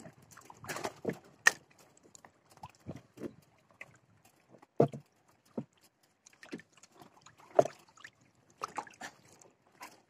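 Waves on a rough lake slapping and knocking irregularly, in short separate slaps every second or so.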